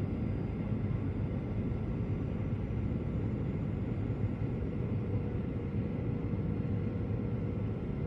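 Steady low rumble of airliner cabin noise on the descent to land, the engines and rushing air heard from inside the passenger cabin, with a faint steady whine above it.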